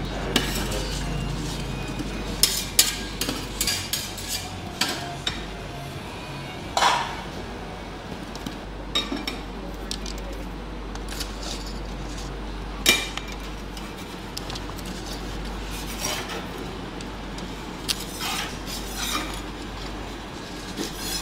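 Metal serving utensils clinking and tapping against the cup and the cold plate as rolled ice cream is topped: scattered sharp clicks, over a steady low hum.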